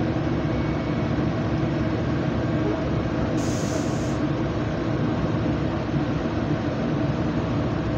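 Steady rumble of a passenger train in motion, heard from inside the carriage.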